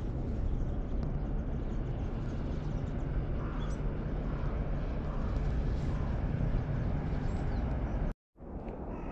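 Steady low rumbling outdoor noise with a few faint bird chirps; the sound cuts out completely for a moment about eight seconds in.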